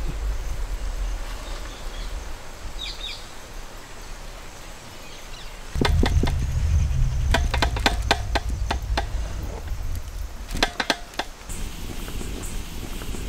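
Low wind rumble on the microphone, with a quick run of sharp clicks and knocks partway through as a large metal vessel of chocolate cake batter is handled.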